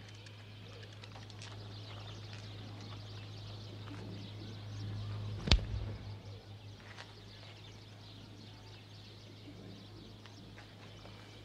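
A glass marble rolls over gritty ground and strikes another marble with one sharp click about five and a half seconds in, followed by a few smaller clicks. Birds chirp faintly over a steady low hum.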